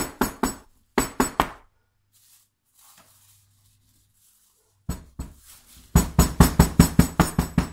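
Wooden soap loaf molds full of fresh cold-process soap batter knocked down on a countertop in short runs of thuds, tapping the air bubbles out of the batter. A few knocks at the start, another short run about a second in, and from about six seconds in a longer, faster run of about five knocks a second.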